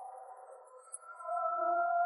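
Soft background music of held, sustained notes; a new pair of notes comes in partway through.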